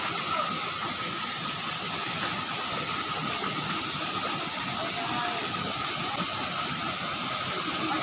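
Waterfall pouring into a rocky pool: a steady rush of falling water.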